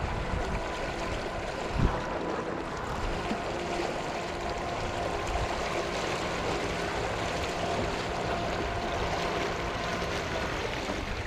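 A DIY electric outboard motor (a 9000-watt build on a 6S battery) driving a stand-up paddle board under throttle: a steady motor and propeller whine over the rush of prop wash and water. There is a knock about two seconds in, and the sound drops off sharply at the very end.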